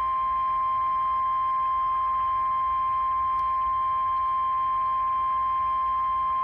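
NOAA Weather Radio 1050 Hz warning alarm tone: a single steady high-pitched tone, held unchanged, signalling the start of an Emergency Alert System test message.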